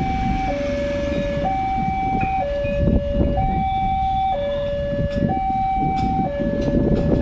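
Indonesian railway level-crossing warning alarm sounding its electronic two-tone signal, a high and a low tone alternating about once a second, which warns of an approaching train as the barrier arms start to lower. Motorcycle engines run underneath as riders cross.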